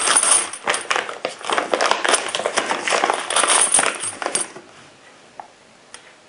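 Plastic zip-top bag being pulled open and handled, with loose brass rifle cases (Winchester .280 Remington) clinking against each other inside, for about four and a half seconds. It then goes much quieter, with a couple of faint clicks as one case is lifted out.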